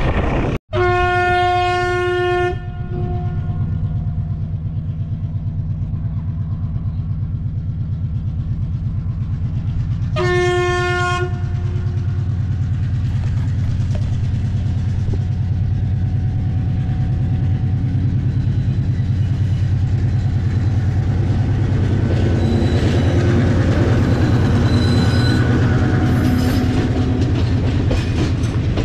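A train horn sounds a long blast near the start and a shorter one about ten seconds later, over the steady rumble and clickety-clack of a train running on the rails.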